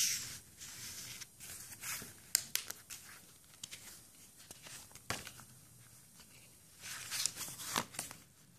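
Paper and card stock rustling as pages of a handmade paper journal are handled and turned and a card slides out of a paper pocket, with a few light taps; fairly faint, in irregular spurts.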